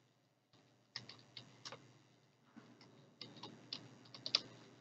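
Faint keystrokes on a computer keyboard, in two short runs of clicks: one about a second in, and another starting about three seconds in.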